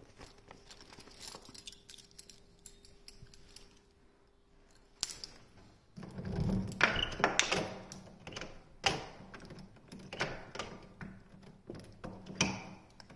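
Keys jangling and clicking at a door's round metal knob lock. It is mostly quiet at first; then, after a sharp click about five seconds in, comes a run of jangles, clicks and knocks.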